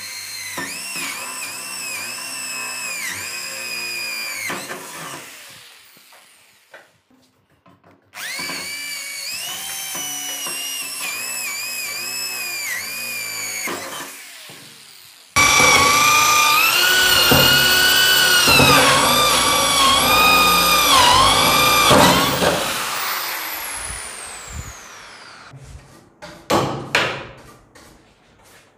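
Electric drill with a titanium cone step bit boring three holes through a wood-grain board: three runs of high motor whine, the pitch dipping again and again as the bit bites and the motor slows under load. The third run is the loudest and longest. A few sharp knocks follow near the end.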